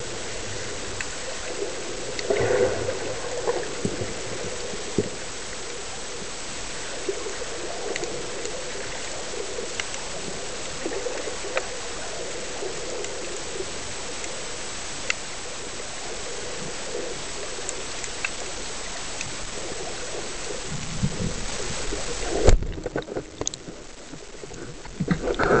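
Steady underwater hiss with scattered faint clicks, heard through an underwater camera's housing. About 22 seconds in, a band-powered speargun fires with one sharp loud knock, followed by a few low knocks and rattles.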